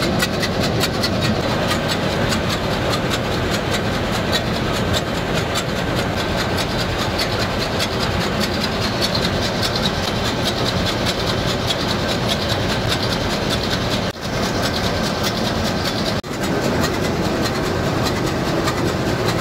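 MAN B&W MC-series two-stroke marine main diesel engine running, with loud, steady engine-room noise and a rapid, regular ticking over it. The noise drops out briefly twice near the end.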